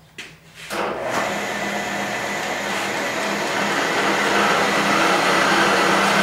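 ProtoTrak TRM bed mill's spindle head starting up: a few clicks, then the spindle motor and head come on just under a second in and run with a steady mechanical noise and a low hum, growing gradually louder as the head is run up through its speeds.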